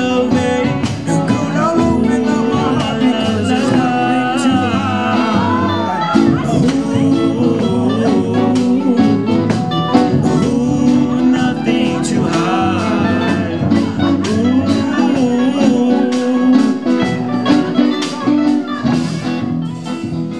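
Live band playing a song, a singer's melody over guitar and drums.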